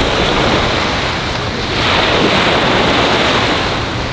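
Surf breaking and washing up a sandy beach, with wind buffeting the microphone; the wash swells louder for a couple of seconds around the middle.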